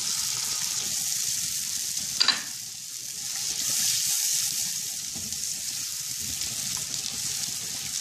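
Milk sizzling as it is poured into a hot non-stick pan of butter-sautéed onions, then bubbling in the pan while a silicone spatula stirs it: the start of a white sauce. A single sharp knock about two seconds in.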